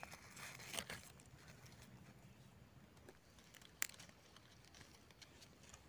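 Faint rustling and scraping of a knife cutting a wild mushroom out of damp leaf litter, with one sharp click nearly four seconds in.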